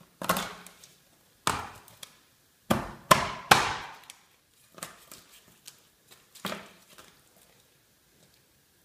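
Cleaver chopping through a raw whole chicken onto a plastic cutting board: five hard chops in the first few seconds, then a few lighter ones.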